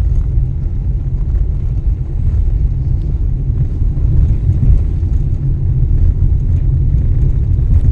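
A car driving, with a steady low rumble of engine and road noise and no distinct knock or rattle standing out.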